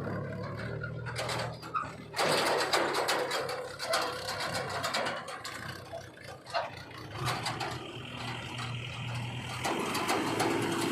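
A machine engine running steadily, joined about two seconds in by irregular metallic clanking, rattling and scraping.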